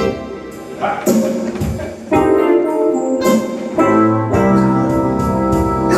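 Instrumental music, with keyboard-like sustained chords changing every second or so, closing a choir song.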